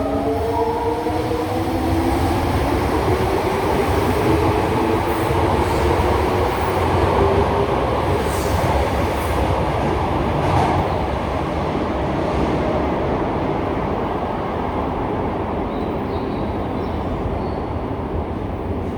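Toei 5300-series subway train accelerating: the motors' rising whine fades out over the first few seconds, leaving a steady rumble of wheels on rail that eases off slightly towards the end.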